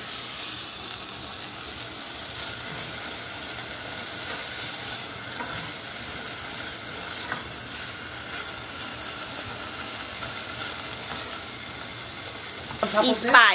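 Food sizzling steadily in hot oil in a pan, with a few light taps of a cooking utensil.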